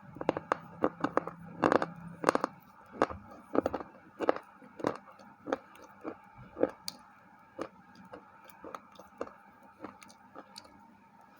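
Close-up crunching and chewing of a white KitKat wafer bar: a quick run of crisp crunches in the first few seconds, then slower, softer bites and chews.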